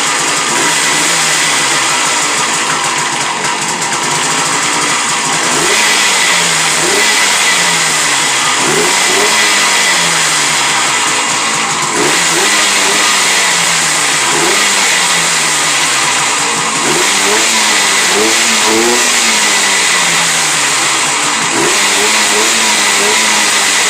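1976 AMF Harley-Davidson SS 175's single-cylinder two-stroke engine running, its revs rising and falling every two or three seconds as the throttle is blipped.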